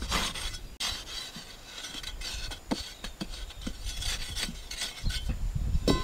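Dry, sandy soil being scraped and rubbed by hand while holes are dug out, in short irregular scrapes with a few small knocks.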